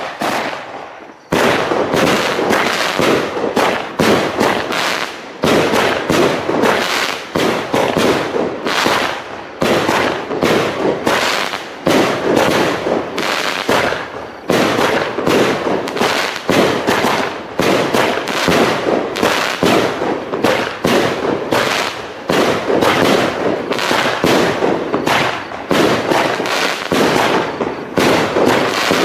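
Iskra RAUSZ 61-shot, 30 mm fireworks cake firing: a brief quieter start, then from about a second in a rapid, unbroken run of launch thumps and aerial bursts, several a second.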